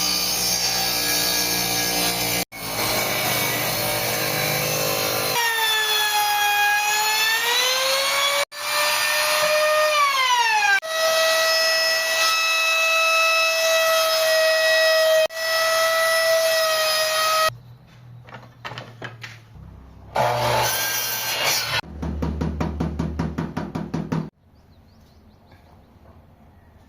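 Electric power tools working wood in a series of short, abruptly cut segments: a motor runs with a whining hum that dips and rises in pitch under load, winds down, then holds steady. Near the end comes a brief noisy burst and then a couple of seconds of rapid, even rattling.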